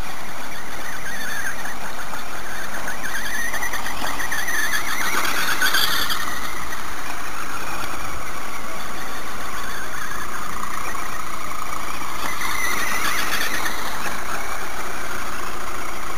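Tamiya Mad Bull RC buggy's electric motor whining as it drives, rising and falling in pitch with the throttle. It is strongest about six seconds in and again around thirteen seconds.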